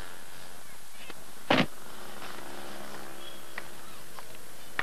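A car door shutting once with a sharp thud, about a second and a half in, over a steady hiss and hum from an old tape soundtrack; a few faint clicks follow.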